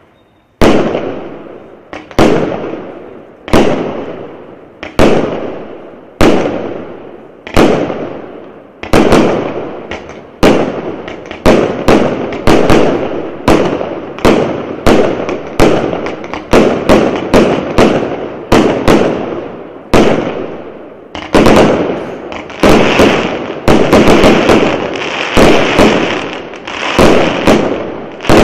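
A 0.8-inch, 64-shot firework cake (aerial repeater) firing shot after shot, each a sharp bang with a fading tail. The shots come about one every second and a half at first, quicken to about two a second, and run together near the end.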